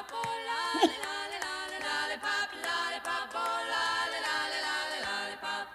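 A melody sung without instruments: a quick run of held notes changing every fraction of a second, one after another.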